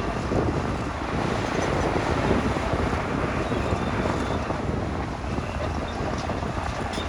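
Diesel engine of a heavy construction machine running steadily, a dense low rumble with no sharp knocks or clear changes.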